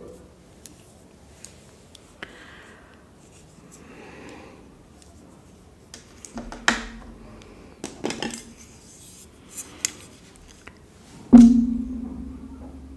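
Cutlery being handled on hard surfaces: soft rustling, then a few sharp knocks and clinks, and one loud knock that rings briefly near the end as a knife is set down and a plastic spoon taken up.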